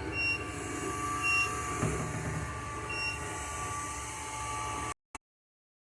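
Mondial robot vacuum running: a steady motor whine over a low rumble, with short high beeps several times. The sound cuts off abruptly about five seconds in, followed by a single click.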